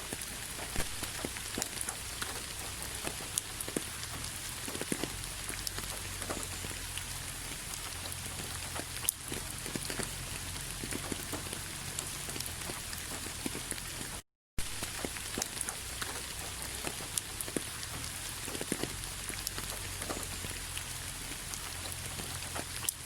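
Steady rainfall, with individual drops tapping irregularly on a hard surface over a soft patter. The sound drops out for a split second about two-thirds of the way through.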